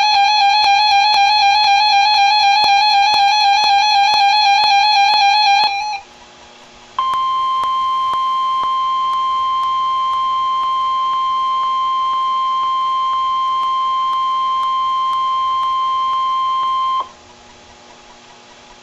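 A wavering electronic tone with overtones, heard as music, runs for the first six seconds or so and stops. After a short pause of faint hiss, the NOAA Weather Radio 1050 Hz warning alarm tone sounds as one steady, unbroken beep for about ten seconds, then cuts off. This tone signals that a weather alert is about to be read.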